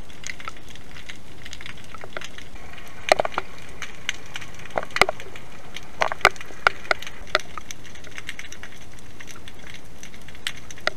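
Underwater sound through a submerged camera: a steady hiss with a scatter of sharp clicks and pops, most of them clustered in the middle.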